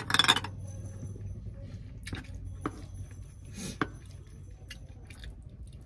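Mukbang eating sounds: a short noisy burst of mouth noise at the start, then a few light clinks of a metal spoon on the dish as rice is scooped, over a steady low hum.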